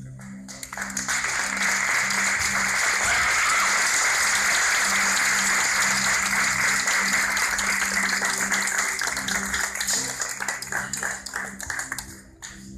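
Audience applauding over background music. The clapping builds within the first second or two, holds steady, then thins to scattered claps near the end.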